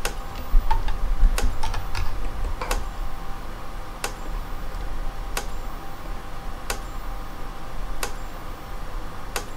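Power Wizard PW18000 electric fence charger pulsing on its half-power setting, a sharp tick with each high-voltage pulse, eight of them about 1.35 seconds apart.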